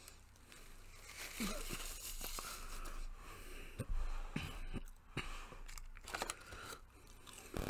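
Paper crinkling and rustling as a fast-food paper bag and nugget wrapper are handled, in irregular bursts with small clicks, along with quiet eating sounds.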